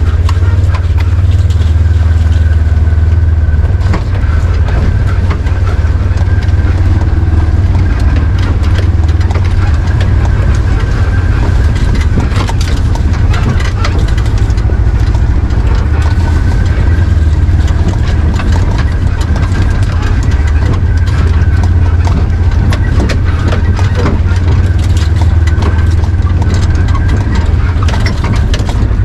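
Polaris side-by-side UTV engine running steadily under way, a heavy low drone with a wavering high whine over it. Scattered rattles and knocks come from the machine bouncing over the rough dirt trail.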